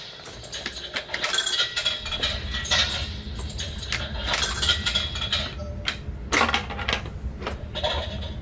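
Toy vending machine being worked: a run of sharp clicks, clinks and clatters of small hard pieces as buttons are pressed and several items drop out. A low steady hum starts about two seconds in.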